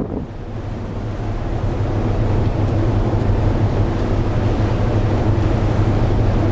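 Wind rushing over the microphone on board a ship, over the steady low drone of the ship's engine; the wind grows a little louder over the first two seconds.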